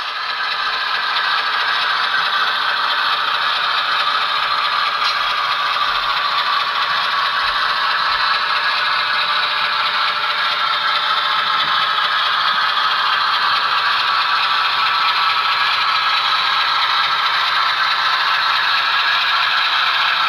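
HO scale model train running steadily: the Athearn Genesis ES44AC locomotive's motor and gears whirring, with the metal wheels of the locomotive and freight cars rattling along the track.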